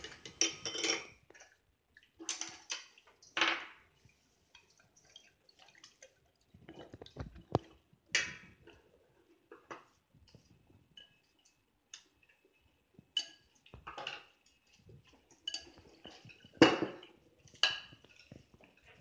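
Scattered clinks, taps and knocks of tableware: dishes, a sauce bottle and utensils being handled on a wooden table. They come at irregular moments, each brief, with the loudest knock about three-quarters of the way through.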